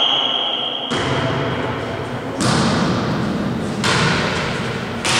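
Referee's whistle holding a steady shrill note that stops about a second in, then volleyball hits thudding and echoing in a large gym hall, three or four times about a second and a half apart, as the serve and rally get going.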